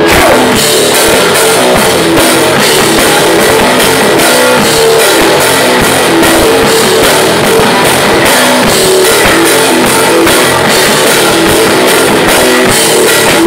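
Loud live rock music from a small band: electric guitar, bass guitar and a drum kit playing a steady driving beat.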